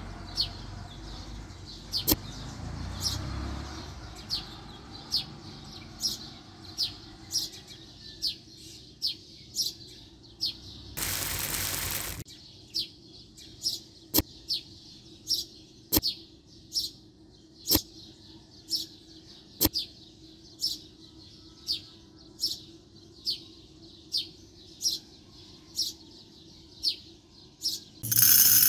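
A small bird chirping over and over, one short high chirp about every second. A brief rushing hiss breaks in about eleven seconds in, and a louder one near the end.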